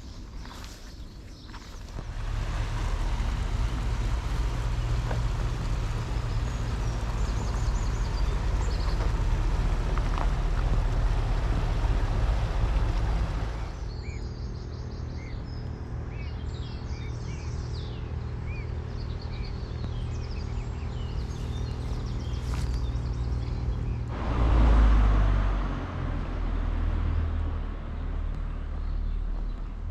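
Outdoor ambience. A steady low rumble fills the first half and drops away about halfway through. Birds then chirp over a quieter background, and a louder low gust comes near the end.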